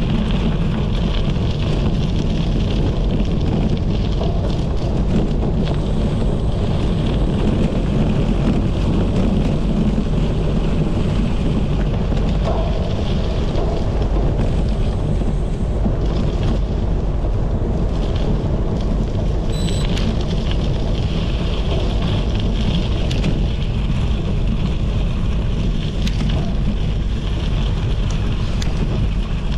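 Steady wind noise buffeting a GoPro's microphone at riding speed, over the rumble and crackle of bicycle tyres rolling on gravel.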